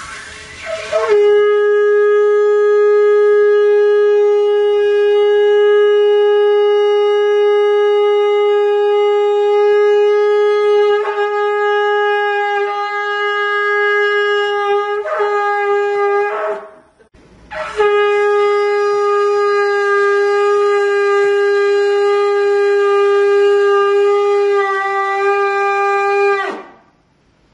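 A long spiralled horn shofar blown in two long, steady held notes: the first lasts about sixteen seconds with a couple of brief wavers, and after a short breath the second lasts about nine seconds and bends down in pitch as it ends.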